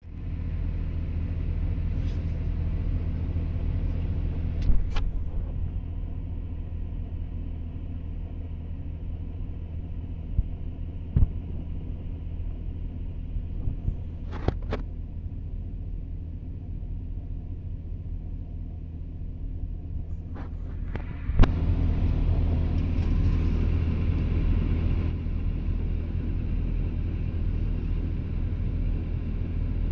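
Excavator's diesel engine running steadily, with a few sharp knocks and clunks. About 21 seconds in, a knock comes and the engine grows louder.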